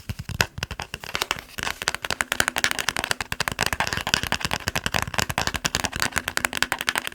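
Fast tapping on a plastic TV remote: a dense run of sharp clicks, many a second, getting brighter and busier about a second and a half in.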